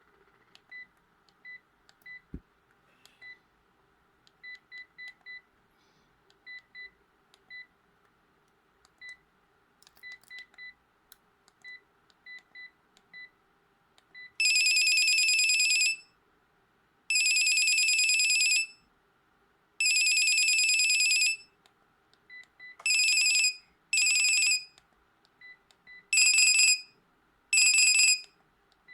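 Sharp GX17 mobile phone: faint short keypad beeps for the first half. Then a ringtone plays through the phone's small speaker as three long buzzy tones about a second and a half each, followed by two pairs of shorter tones.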